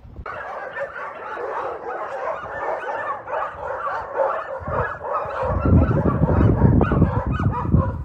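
A pack of stray dogs barking and yelping together, many voices overlapping without a break. About halfway through, a heavy low rumble joins in and is the loudest part.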